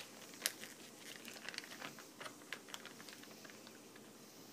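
Thin plastic boil-in-bag crinkling and crackling in the hand as cooked rice is shaken out of it onto a plastic plate, a quick run of small faint ticks that thins out near the end.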